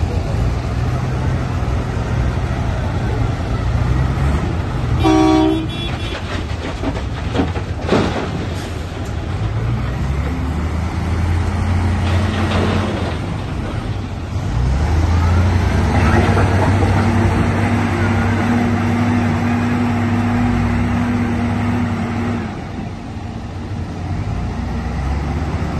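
Diesel wheel loaders, a Cat 980 among them, running while they dump dirt into a dump truck, with the engines working harder from about fifteen seconds in. A vehicle horn toots briefly about five seconds in, and a single sharp knock comes a few seconds later.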